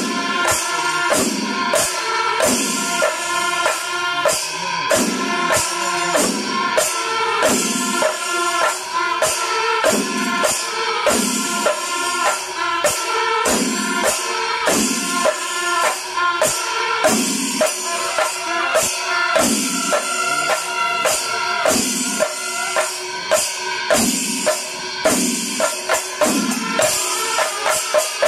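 Kerala chenda melam: chenda drums beating with ilathalam cymbals in a steady, even rhythm, with held notes sounding over the percussion.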